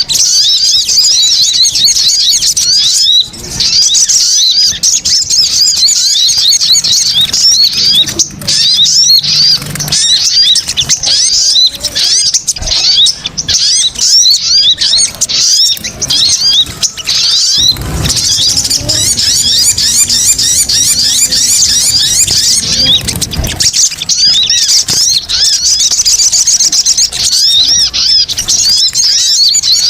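Little spiderhunter (sogon) calls played as a bird-lure recording: a loud, nonstop chatter of quick, high, repeated chirps.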